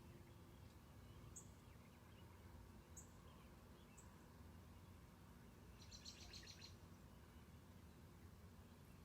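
Faint wild birds calling: a few short high chirps spaced a second or so apart, then a brief burst of birdsong past the middle, over a low steady background rumble.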